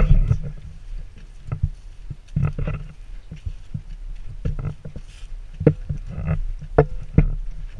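Irregular knocks, clicks and rustling from grass and handling on a low-held action camera as large dogs trot past close by.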